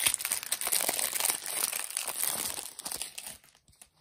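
Foil wrapper of a trading-card pack crinkling as it is opened and crumpled, dense crackling that stops about three and a half seconds in, leaving a few faint clicks near the end.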